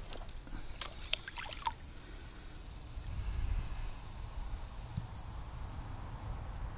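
Creek ambience heard from a kayak: an uneven low rumble of wind on the microphone under a steady high hiss that cuts off suddenly about six seconds in. A few light ticks come in the first two seconds.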